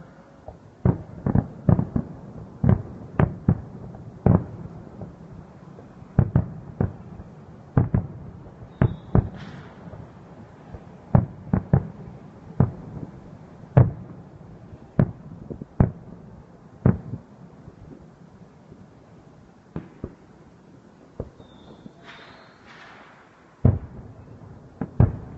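Aerial firework shells bursting: a quick, irregular series of sharp bangs, thinning out after about seventeen seconds to a few scattered bangs.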